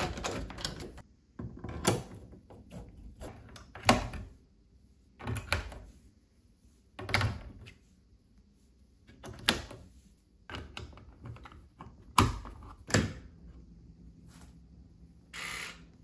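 Hard plastic and metal clicks and knocks of a smart door lock being assembled by hand: parts pressed into place and the battery compartment fitted and closed. There are about ten separate clacks a second or so apart, the loudest about four seconds in and around twelve seconds. A brief half-second sound comes near the end as the lock powers up.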